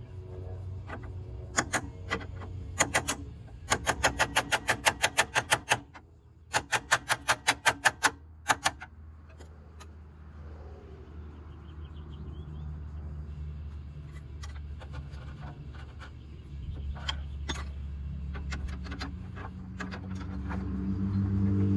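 Hand-tool work on a pickup's front suspension: two quick runs of sharp metallic clicks or taps, about four or five a second, and scattered single clicks, over a steady low hum.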